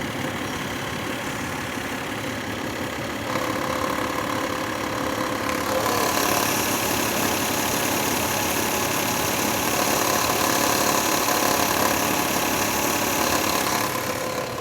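Lexus IS300's 2JZ-GE inline-six idling, with the ticking noise that the owner takes for a bad belt tensioner damper. It gets louder about three seconds in and again about six seconds in, then drops near the end.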